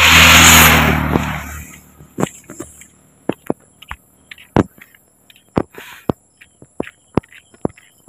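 A motor vehicle passes close by, a loud rush with a low engine hum that fades within the first two seconds. After it comes a run of sharp separate taps, the walker's footsteps on the road.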